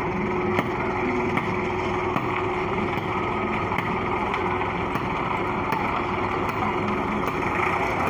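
Transit concrete mixer truck running, its diesel engine and turning drum making a steady drone, with a light tick about once a second.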